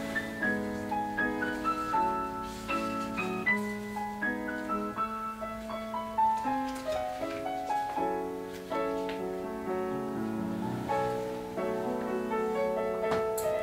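Solo piano music: a melody of held notes over sustained chords.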